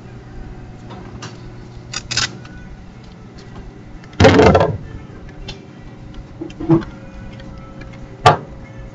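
Steady low hum with a few knocks and clicks. The loudest, about four seconds in, lasts about half a second, and two sharper knocks follow near the end.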